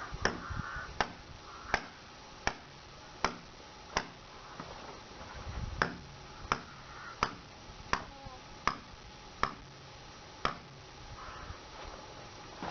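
A series of sharp knocks at an even pace, about one every three quarters of a second, with a pause of nearly two seconds partway through.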